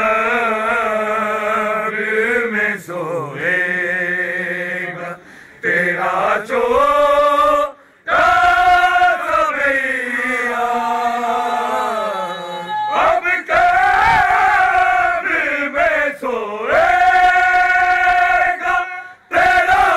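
Men chanting an Urdu noha, a Shia lament, in long sung phrases with short breaks between them.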